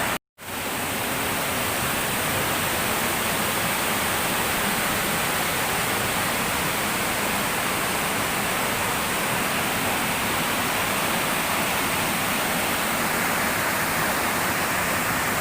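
Waterfall: an even, steady rush of falling water, after a split-second gap at the very start.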